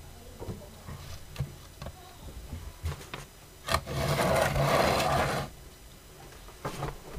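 Light clicks and knocks of a resin model coach body being handled and set down on a cutting mat, with a louder scraping rustle lasting about two seconds midway.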